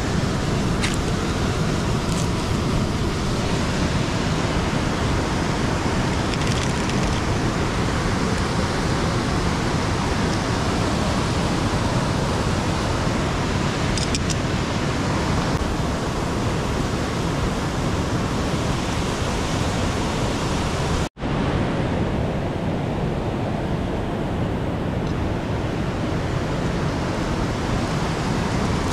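Steady rushing noise of fast-flowing river water, cut off for an instant about two-thirds of the way through.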